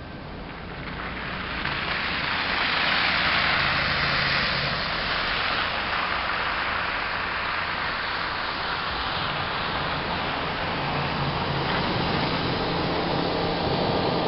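Toro Power Shovel, an electric snow shovel, running: its motor and rotor whirring with a steady hiss of snow being thrown. The sound builds over the first couple of seconds, then holds.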